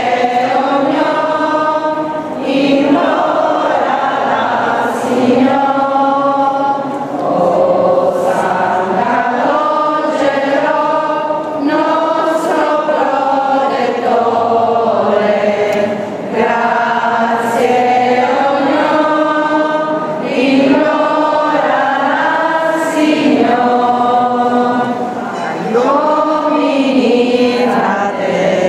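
A congregation of many voices singing a hymn together, in phrases of held notes with short breaks for breath every couple of seconds.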